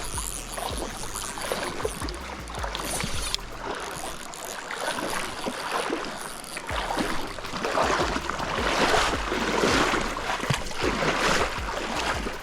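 A rain-swollen river rushing in high water, a continuous wash of water noise that swells louder for several seconds in the second half.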